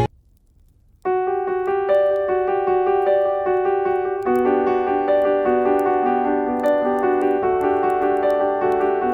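Background music: after about a second of near silence between tracks, a gentle piano piece begins with repeated notes, and lower chords join about four seconds in.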